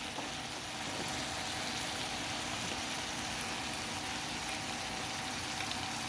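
Pork chop pieces and potatoes for menudo sizzling and bubbling in an oiled pan on the stove, a steady hiss.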